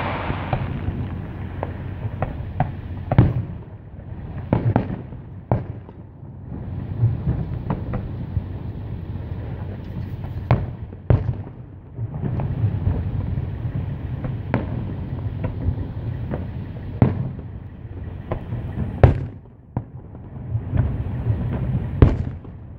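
Distant fireworks bursting: a string of sharp bangs at irregular intervals, the loudest about three seconds in, at about ten to eleven seconds, and near the end, over a steady low rumble.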